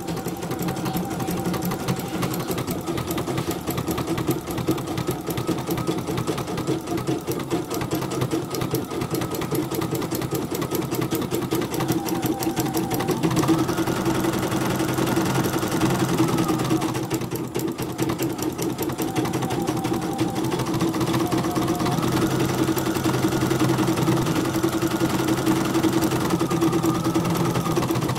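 CNY portable computerized embroidery machine stitching through thick fabric, its needle running in a fast, steady rhythm. A higher motor whine joins in twice, in the middle and again toward the end.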